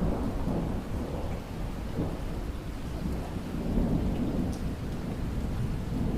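Light rain falling and dripping, with distant thunder rumbling low underneath; the rumble swells near the start and again around the middle.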